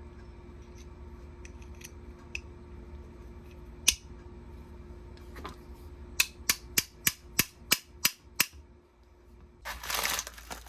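Hammer striking a steel rivet in the wrench: one sharp strike about four seconds in, then a quick run of about nine strikes at roughly three a second. A short burst of rough noise follows near the end, over a faint steady hum.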